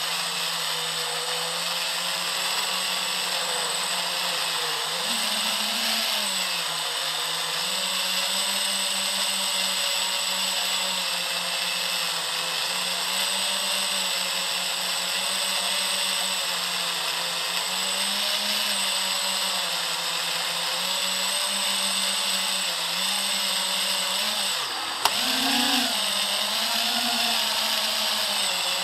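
Electric motors and propellers of an FPV quadcopter whining in flight, heard from its onboard camera, the pitch wavering up and down with the throttle. Near the end there is a sharp click and a brief drop, then the pitch rises.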